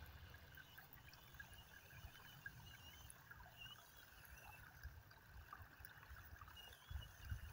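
Near silence: a shallow stream trickling faintly over stones.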